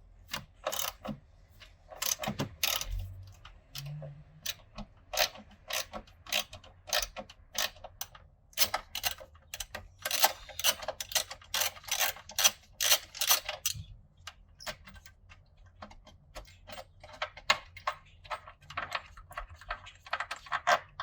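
Ratchet wrench with a 14 mm socket clicking in runs of short strokes as it loosens a pitch stop mount bolt.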